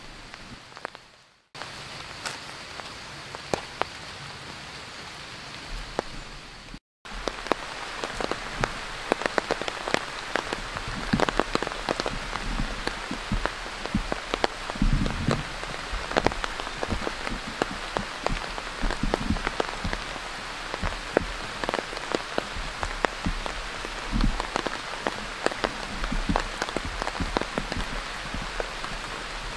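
Steady rain, with many individual drops striking a surface as sharp clicks; the drop strikes grow denser after about seven seconds. The sound cuts out completely for a moment twice, about a second and a half in and near seven seconds.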